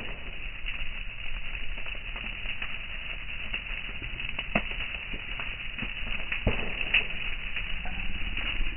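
Brush pile of dry stalks and twigs burning, crackling steadily with irregular sharp pops, a few of them louder.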